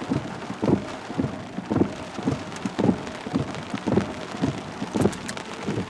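Rain falling, with large drops landing irregularly, about two a second, over a steady hiss.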